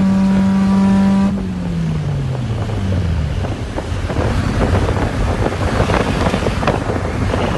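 Suzuki G16 1.6-litre four-cylinder engine in a Cultus, heard from inside the cabin, holding a steady high-revving drone. About a second in, its pitch falls away as the revs drop. The rest is wind and road noise with scattered knocks and rattles.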